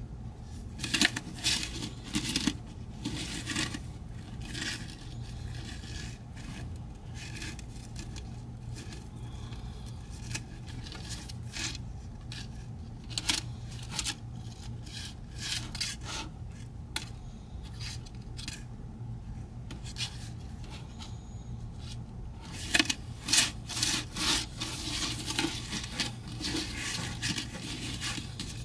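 Gold diamond tennis necklaces being handled: irregular small clicks and rustles as the chain links shift and fingers rub over them and the cloth. The clicks are busiest in the first few seconds and again near the end, thinning out in between, over a faint steady low hum.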